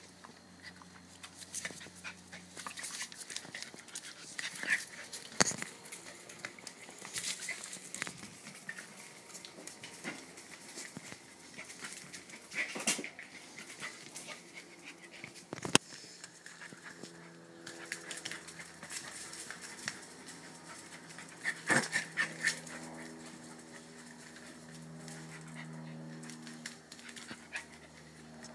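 Three-month-old Welsh Corgi puppy playing on a tile floor: scattered sharp clicks and knocks from its claws and a plastic toy, with a few short puppy vocal sounds, a cluster of them about three quarters of the way through.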